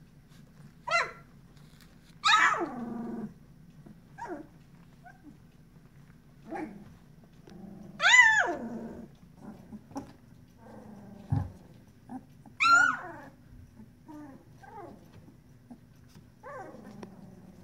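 Sixteen-day-old puppies crying: short, high yelps and whines, each falling in pitch, about eight over the span, the loudest ones about two, eight and twelve seconds in.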